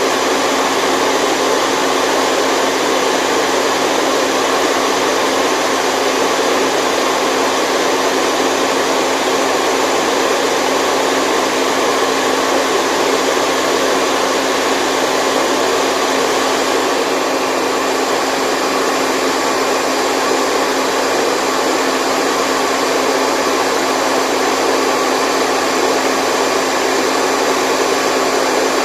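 Steady, unchanging white noise, loud and even, with almost no deep bass.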